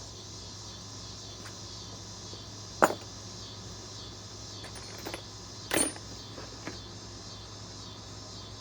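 A few short sharp clicks and knocks as a socket is fitted onto a cordless impact wrench: one loud click about three seconds in and another cluster near six seconds. Under them is a steady high chirring of crickets.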